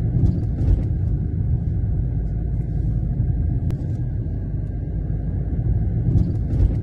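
Steady low rumble of a car driving along a road, heard from inside the cabin, with a few faint clicks about half a second in and again near the end.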